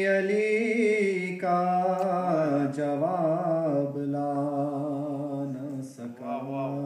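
A man singing a manqabat, a devotional poem in praise of Imam Ali, solo with no instruments, in long held notes that waver and slide in pitch, broken briefly about a second and a half in and again near the end.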